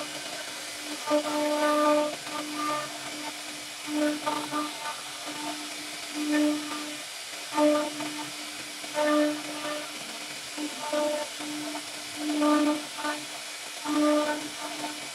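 CNC router spindle running with a steady hiss as its bit carves a relief pattern into a wooden door panel. A steady-pitched hum swells in short bursts every second or two as the cutter works through the wood.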